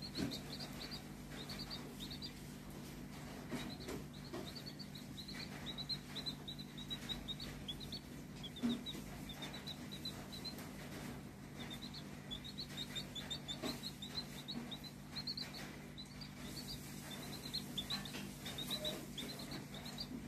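Newly hatched chick peeping in runs of short, high, rising cheeps with brief pauses between runs. A low steady hum sits underneath.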